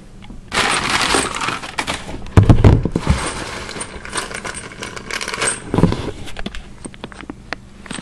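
Rummaging through a cardboard box of bike parts: plastic packaging rustling and small hard parts clicking and rattling, with a loud cluster of knocks about two and a half seconds in and another knock near six seconds.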